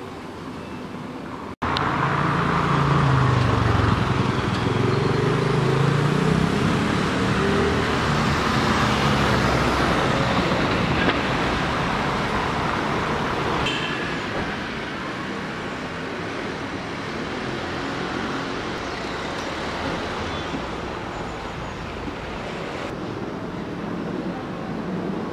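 Street traffic noise: a motor vehicle's engine runs close by, starting abruptly about a second and a half in and loudest over the next several seconds. It then eases to a steadier, quieter traffic hum.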